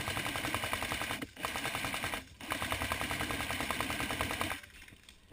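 Airsoft rifle firing on full auto: three rapid bursts of evenly spaced shots, the last and longest stopping about a second before the end.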